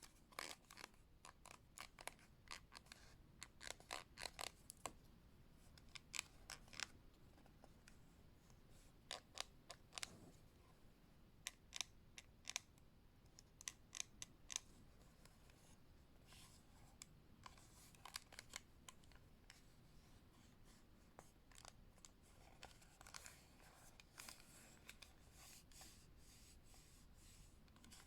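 Close-up taps and scratches on the plastic case of a Western Digital My Passport external hard drive: quick clusters of sharp little clicks, growing softer and more scratchy in the second half.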